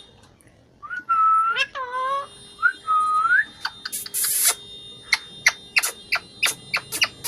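Pet parrot whistling and chattering: a few curving whistled calls, a short harsh screech about four seconds in, then a quick run of sharp chirps.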